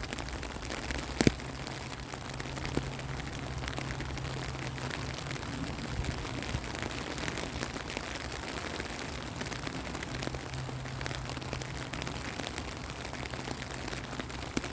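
Steady rain falling, an even hiss with scattered drops tapping and one sharper tap about a second in. A faint low hum runs underneath and drops out for a few seconds in the middle.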